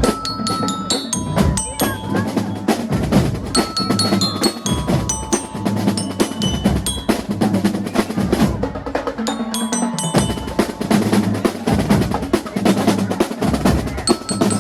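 Marching band playing: snare and bass drums keep a steady beat while a glockenspiel-type bell lyre plays the melody in short, ringing high notes.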